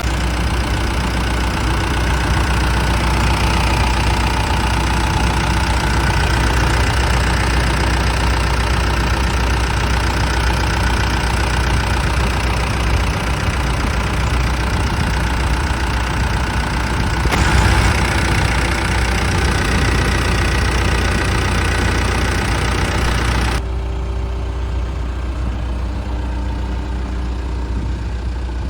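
2003 John Deere 310SG backhoe loader's diesel engine running steadily, with a brief swell in loudness a little past halfway. About five seconds before the end the sound turns suddenly quieter and duller.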